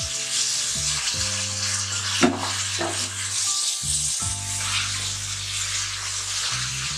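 Mutton pieces sizzling in hot oil and onion masala in a pressure-cooker pan as they are stirred and browned with a silicone spatula, with a couple of brief scrapes of the spatula against the pan. Soft background music plays underneath.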